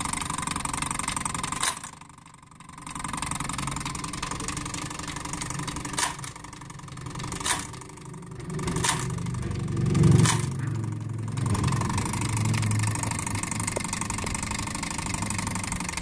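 Gamewell fire alarm mechanism running with a steady mechanical whir, broken by about five sharp clicks spaced a second or more apart.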